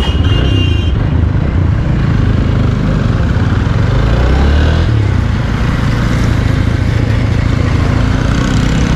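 Hero Xpulse motorcycle's single-cylinder engine running steadily through a shortened aftermarket exhaust silencer with its inner baffle barrel removed, giving a loud, deep exhaust note.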